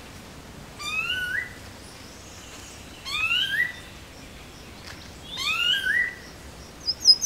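Wild birds calling: one bird gives the same rising whistled phrase three times, about two seconds apart, and near the end a second bird starts a rapid series of high, short notes.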